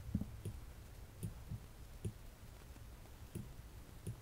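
Scattered clicks of a computer mouse and keyboard on a desk, about seven at uneven intervals, each a light tick with a dull thump beneath it.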